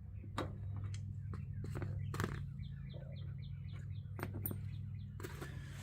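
A quick run of faint bird chirps, about six a second, in the middle of the stretch, over a steady low hum, with scattered light clicks.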